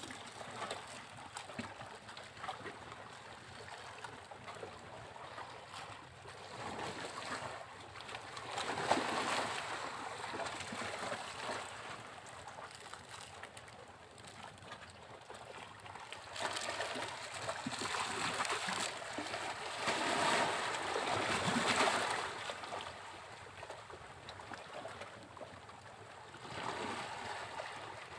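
Sea waves breaking on a beach: a continuous wash of surf that swells and eases as waves come in, loudest a little past the middle.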